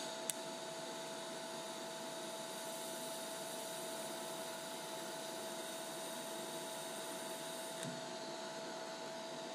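Lincoln Electric Aspect 230 TIG welder humming steadily with its cooling fan running. A click just after the start, then a faint DC TIG arc hiss from about two and a half seconds in until nearly eight seconds, as the tips of thin razor blades are fused without filler.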